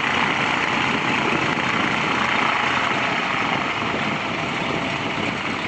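Cessna 180B floatplane's engine and propeller running steadily as it taxis on the water to dock.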